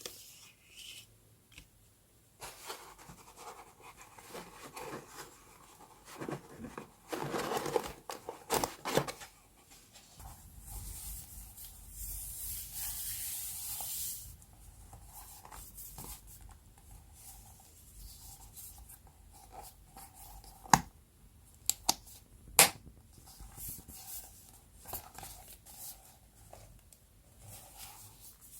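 Paper and stickers being handled for journal decorating: irregular rustling and rubbing, a steady hissing scrape lasting about four seconds a third of the way in, and two sharp taps about two seconds apart later on.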